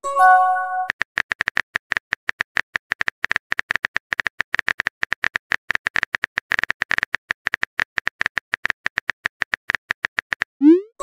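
A short chime of several stacked tones from a texting app, then rapid, irregular keyboard-typing clicks as a message is typed letter by letter.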